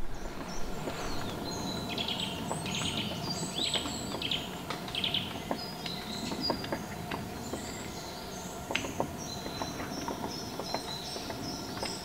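Woodland birdsong: several birds chirping and calling with many short, high notes throughout, with a few faint scattered taps.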